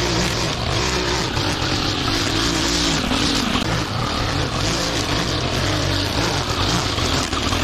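Petrol lawn mower engine running steadily under load, its pitch wavering slightly as it cuts through thick grass.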